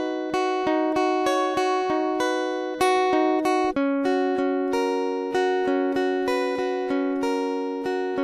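Background music: a plucked string instrument playing a steady, even run of notes, about two to three a second.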